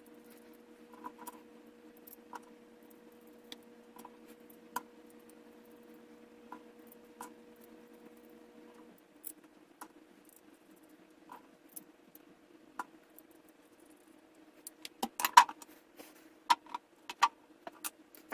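Light scattered clicks and taps of small hard drone-frame parts and screws being handled, over a faint steady hum; the clicks bunch up and get louder near the end.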